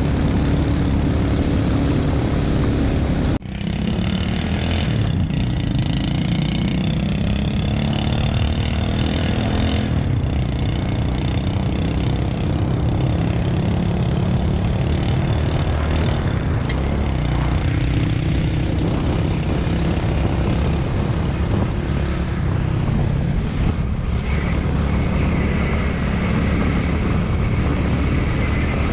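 Motorbike engine running at road speed with heavy wind rush buffeting the camera microphone, a steady low rumble.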